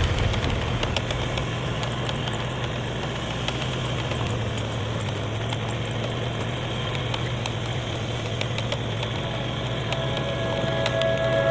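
Diesel engine driving an irrigation water pump, running steadily at a constant speed with a low, even hum.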